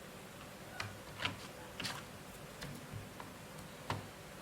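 A few light, scattered clicks and taps, about six over four seconds, from small laptop parts being handled, such as a loose screw being set aside.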